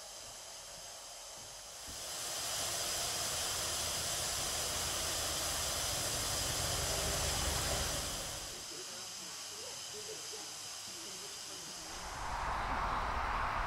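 Steam hissing from narrow-gauge steam locomotives standing in steam, loud and bright from about two seconds in and dropping back after about eight seconds. Near the end a second, lower-pitched hiss swells in.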